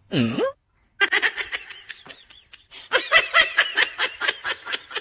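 A short swooping tone that falls and rises again, then high-pitched laughter in rapid bursts from about one second in, growing louder about three seconds in.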